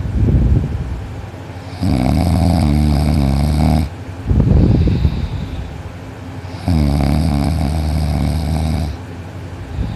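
A teenage boy snoring loudly while asleep on his back with his mouth closed. Two long, low buzzing snores of about two seconds each come about two seconds in and again near seven seconds in, with shorter breathy puffs between them.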